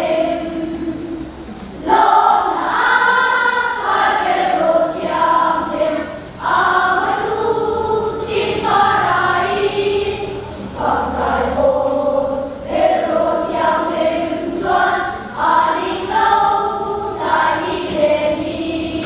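Children's choir singing, holding long notes in phrases with short breaks between them.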